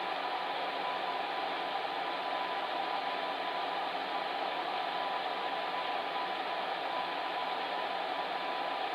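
Fan heater running steadily: an even rushing of blown air with a faint steady hum.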